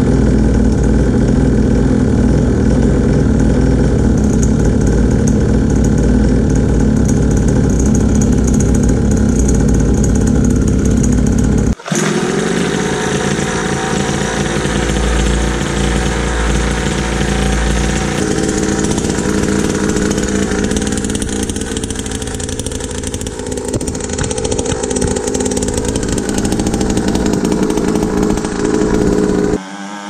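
Small 50cc two-stroke dirt bike engine running at a steady speed. About twelve seconds in the sound breaks off abruptly and the engine comes back, again running steadily, with small shifts in pitch later on.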